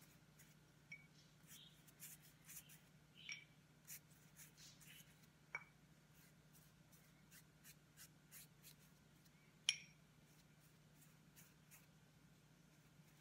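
Faint brushing of a pastry brush spreading melted butter over rolled-out dough, with a few light clinks of the brush against the small butter bowl, the sharpest just under ten seconds in.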